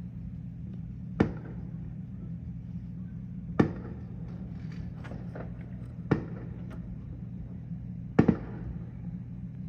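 Fireworks going off: four sharp bangs about two and a half seconds apart, the last a quick double bang, over a steady low hum.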